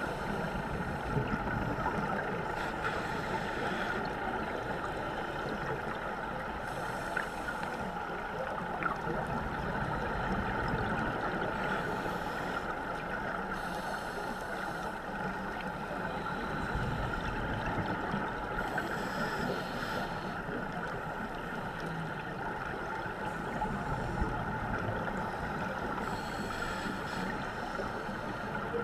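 Underwater sound picked up through a GoPro Hero3's waterproof housing: a steady muffled rush with a constant hum. Every five to six seconds comes a short hiss of scuba exhaust bubbles from a diver's regulator.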